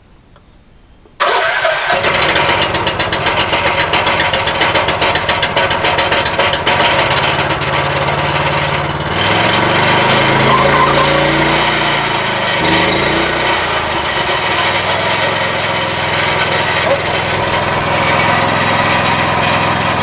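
A portable band sawmill's engine starting about a second in and running with a fast, even beat. Around nine seconds in it is throttled up, the pitch sliding for a few seconds before it settles into a steady higher run.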